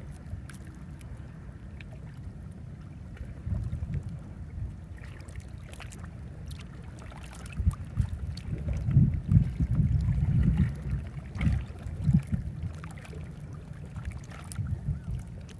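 Wind buffeting the microphone in gusts, a low rumble that swells and falls more strongly in the second half, with scattered faint ticks above it.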